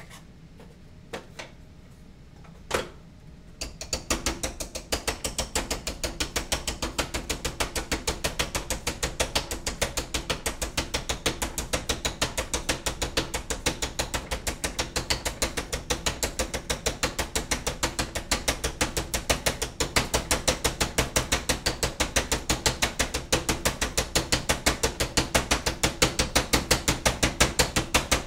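Light, steady tapping on a laser-cut wooden box part, several taps a second, driving the piece down until the joint seats flush. A few separate knocks come first, in the opening three seconds.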